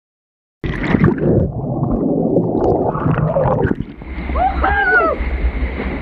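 Waterfall water rushing and splashing, starting abruptly after a moment of silence and settling into a steadier rush with a low rumble after about four seconds. A brief rising-and-falling call sounds about halfway through.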